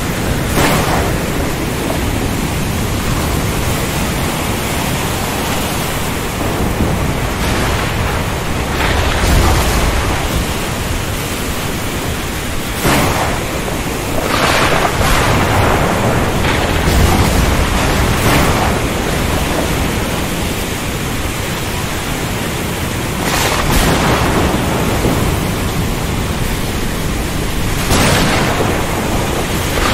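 Steady rain with thunder in a storm: a constant hiss of rainfall broken about half a dozen times by sudden thunderclaps and low rolling rumbles.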